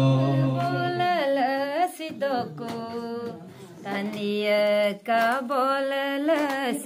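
A man's low singing voice for about a second, then a woman singing a gospel song solo into a microphone, with long held notes that slide in pitch.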